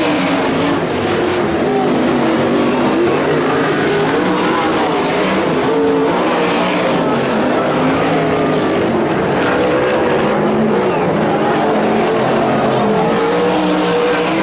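Winged sprint cars' V8 engines racing on a dirt oval. The engine notes rise and fall as the cars power through the turns and down the straights.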